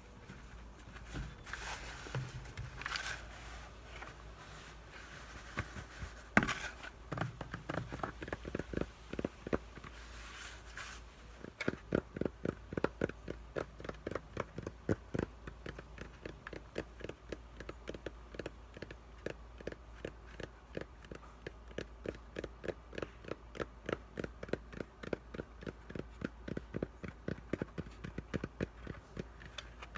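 Floral foam being scraped and crumbled with scratchy, crackling sounds. About a third of the way in, this gives way to quick, even tapping that keeps going.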